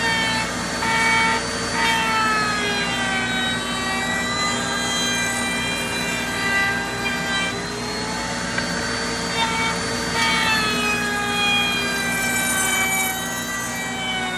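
Router table running and cutting a poplar rocker; the router's high whine falls in pitch and climbs back again a few times as the bit works the wood.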